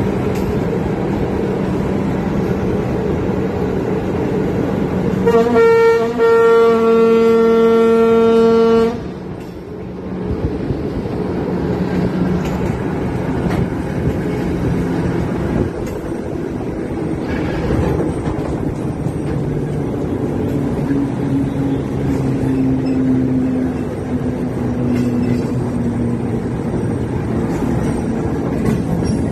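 Diesel-hydraulic TGM6 locomotive hauling a train at speed, with steady engine and wheel noise. About five seconds in, its horn gives a short toot, then a long blast of about three seconds.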